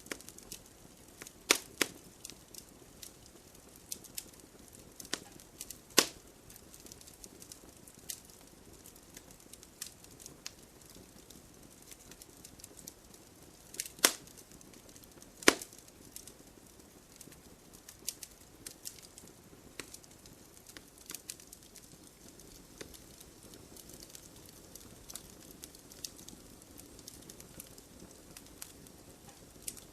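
Firewood logs burning, crackling with irregular sharp pops over a soft steady hiss; a few louder snaps stand out, two close together about halfway through.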